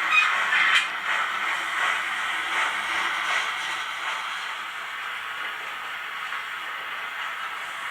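Sound decoder of a Piko model steam locomotive playing steam hiss and running noise through its small speaker, with a few sharp clicks in the first second, then settling into a steadier, fainter hiss.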